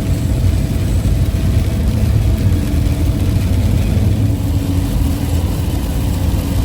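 Camper van driving at highway speed, heard from inside the cab: a steady low engine and road rumble with tyre hiss on a wet road.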